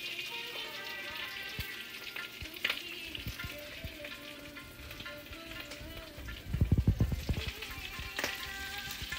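Chicken pieces sizzling and crackling as they brown in a hot pan, with background music over them. About two-thirds of the way in there is a short burst of low thumps.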